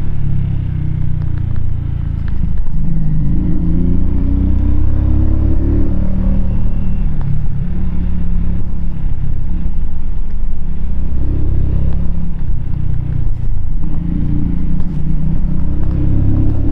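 Keeway K-Light 125's small air-cooled V-twin engine running under way, its pitch rising and falling and stepping as the revs change, over a low rumble of riding noise.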